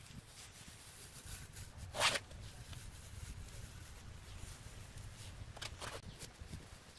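Trowel blade scraping along the edge of fresh cement render, with one louder scrape about two seconds in and two short ones near the end.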